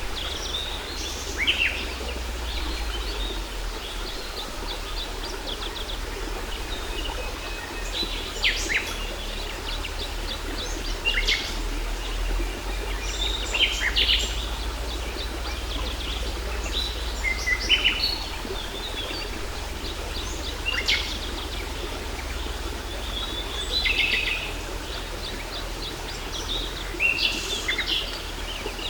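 Several birds chirping and calling in short phrases, many with quick downward-sliding notes, every second or two over the steady rush of a waterfall.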